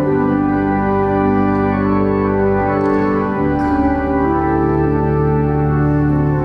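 Church organ playing slow, sustained chords that change every few seconds.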